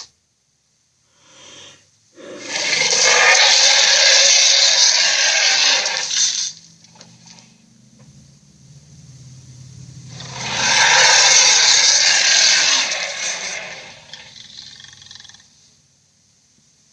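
Gorilla roar sound effect: two long, harsh, breathy roars of about four seconds each, the first about two seconds in and the second about halfway through, with a faint low rumble between them.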